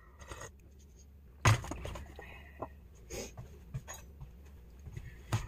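Kitchen handling clatter of a metal spoon against dishes and a plastic container while scooping cooked Brussels sprouts. One sharp knock comes about a second and a half in, then a few lighter clicks.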